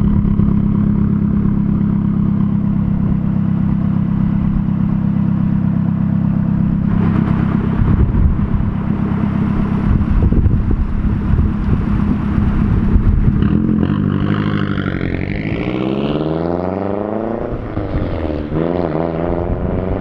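Mazdaspeed 3's turbocharged 2.3-litre four-cylinder, with a catted downpipe and a resonator-deleted stock catback, running with a steady deep exhaust note. It then pulls away and accelerates, the exhaust note rising in pitch with a turbo whistle above it. The pitch dips at a gear change near the end, then climbs again.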